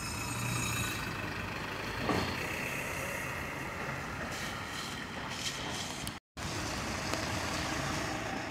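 Traffic passing on a rain-wet street, tyres hissing on the wet road as cars and an articulated tram go by. The sound cuts out for a moment about six seconds in.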